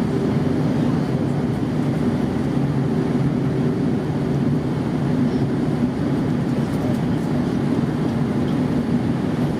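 Steady drone of an Airbus A320's jet engines: a dense low hum with a few steady tones, unchanging in level.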